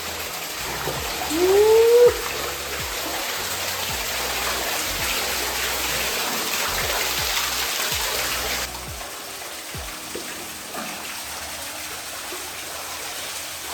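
Steady hiss of falling water, typical of rain coming down, over background music. It cuts off abruptly about two-thirds of the way through, leaving the music. A short rising tone sounds about a second and a half in.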